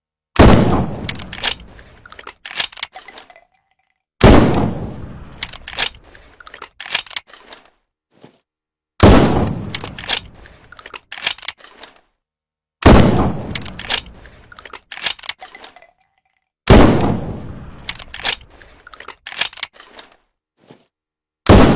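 Single-shot shotgun sound effect: a loud shot with a decaying echo, followed by a string of sharp clicks, repeated six times about every four seconds.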